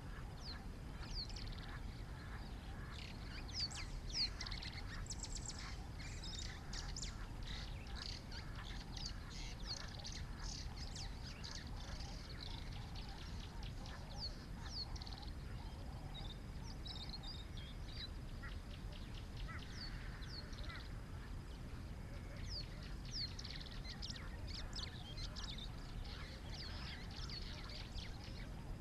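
Birds chirping: many short, high calls in quick succession, fewer for a few seconds past the middle, over a low steady rumble.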